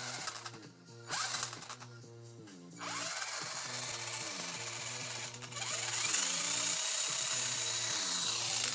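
RC drift car's 15-turn electric motor and drivetrain revved with the wheels in the air, in several bursts with short pauses, the whine rising in pitch as the motor spins up and holding high near the end. Background music plays under it.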